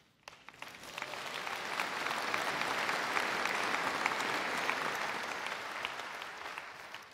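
Large audience applauding. The clapping builds over the first second or two, holds steady, then dies away near the end.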